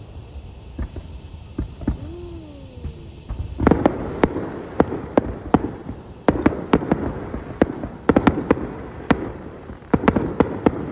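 Fireworks display: aerial shells launching and bursting. A few scattered pops come first, then from about three and a half seconds in a rapid, irregular series of sharp bangs.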